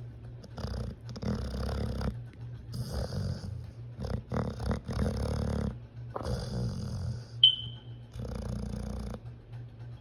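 A pit bull snoring: about six rasping snores at an uneven pace of one every second or two. About seven seconds in, a single brief high-pitched chirp sounds.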